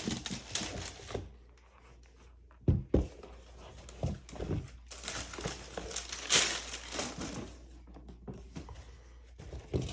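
Paper packaging crinkling and rustling as sneakers are unboxed and handled, with two sharp knocks just under three seconds in and a louder stretch of rustling midway.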